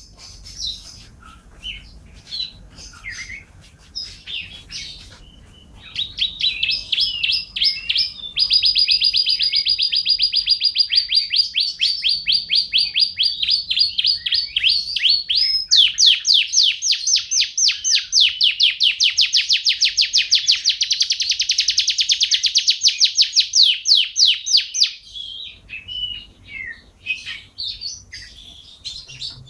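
Domestic canary singing loudly in full song. Short chirped phrases give way about six seconds in to long, rapid rolling trills lasting several seconds each, then break up into short phrases again near the end.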